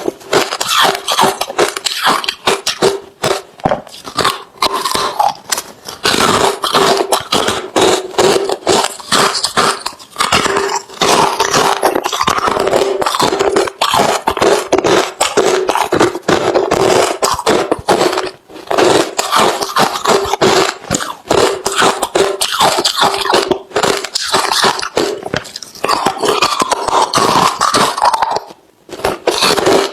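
Close-up chewing of hard, refrozen crushed ice: dense, rapid, loud crunching as the teeth break the pieces, with a brief pause near the end.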